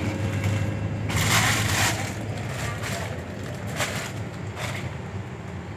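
Double-decker bus cabin: the bus engine runs as a steady low hum. There is a loud burst of hissing, rustling noise about a second in and two shorter ones near four seconds.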